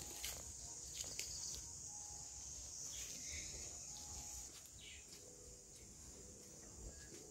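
Insects chirring steadily in a high-pitched band, with a few short faint bird chirps and scattered light clicks, the loudest about a second in.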